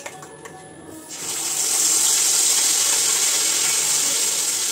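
Wet spice paste (masala) spooned into hot oil in a wok, bursting into a loud, steady sizzle about a second in. Before it, a few light clicks of a spatula in a steel bowl.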